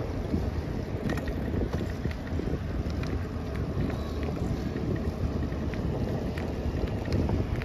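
Wind buffeting the microphone of a camera on a moving bicycle, a steady low rumble, mixed with the bike's tyres rolling over brick pavers and then gravelly, patched asphalt. Scattered light ticks and rattles run through it.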